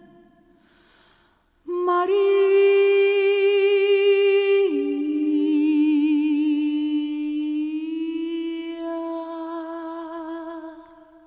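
Background music: a wordless humming voice holds long notes with vibrato. After a faint start it enters about two seconds in, drops to a lower note just before the five-second mark, and holds that note almost to the end.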